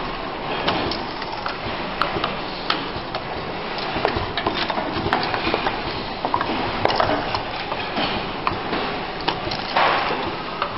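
WDT-4R-10P automatic four-station relay soldering machine running: a continuous mechanical clatter of irregular clicks and knocks from its pneumatic cylinders and indexing mechanism over a steady machine noise, with a brief louder rush of noise near the end.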